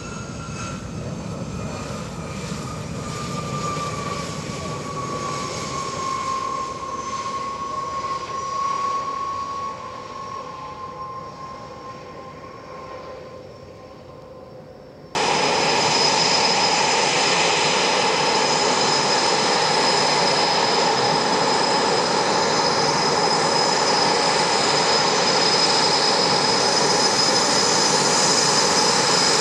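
Boeing EA-18G Growler's twin General Electric F414 turbofans. At first they give a whine that falls in pitch and fades as the jet rolls away down the runway. About halfway through the sound jumps suddenly to a loud, steady, high jet whine as the jet taxis close by.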